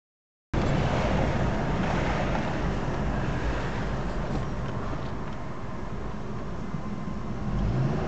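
Car engine and road noise heard from inside a moving car, a steady rumble with the engine note rising near the end as the car speeds up.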